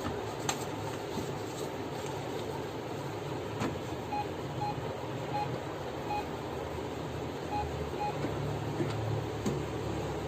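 Steady background hiss with a few sharp clicks, and about four seconds in a series of six short electronic beeps at irregular intervals.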